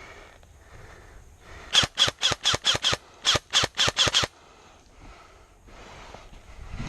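Airsoft gun firing two rapid strings of sharp shots, about six a second, with a brief pause between the strings.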